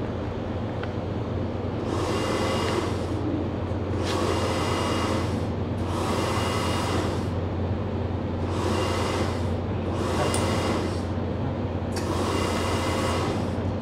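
A steady low machine hum, with a hissing rush that swells and fades about every two seconds.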